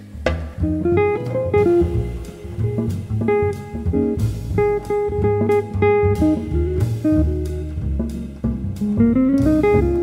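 Background music: an instrumental jazz piece led by guitar, with bass and a drum kit, with a quick rising run of notes near the end.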